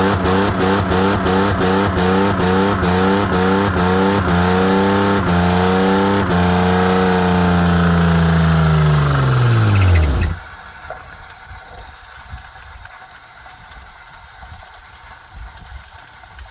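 Jeep Commander engine, run with water in its oil, held at high revs with its pitch surging and dropping about three times a second; the surges stretch out and the revs fall away until the engine stops about ten seconds in. The engine is dying, its oil ruined by water.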